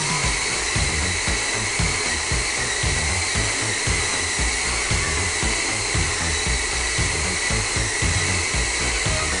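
Steady air hiss of a compressor-fed paint spray gun spraying a ceiling, with an uneven pulsing low rumble underneath.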